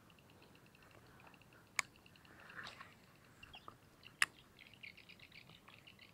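Faint, rapid high chirping of small animals outdoors, in quick rows that thicken near the end, broken by two sharp clicks about two and a half seconds apart.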